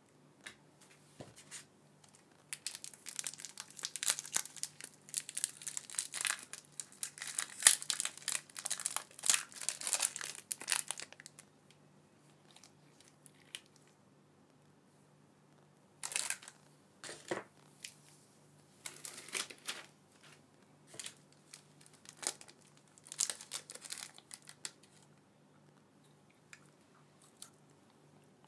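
Chocolate bar wrapper of plastic film and inner foil being torn open and crinkled by hand, in dense crackling for several seconds, then in short scattered rustles.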